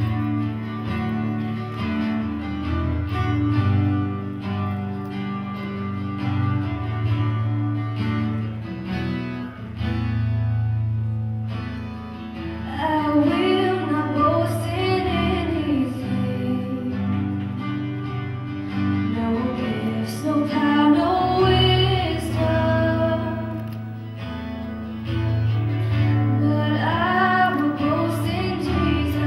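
Live worship song: an acoustic guitar plays a steady accompaniment, and a woman's solo voice enters about twelve seconds in, singing phrases with short breaks between them.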